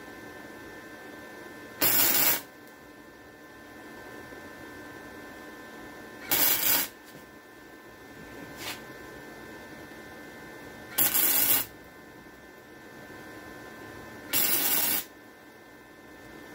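Wire-feed welder laying four short tack welds, each a half-second burst of arc crackle, spaced a few seconds apart over a steady hum.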